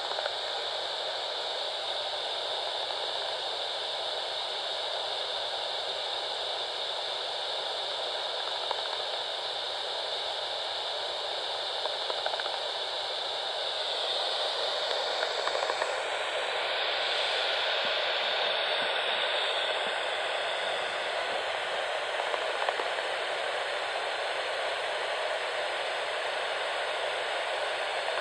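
Bat detector's speaker giving out a steady static hiss, its tone shifting about halfway through, with a few faint ticks.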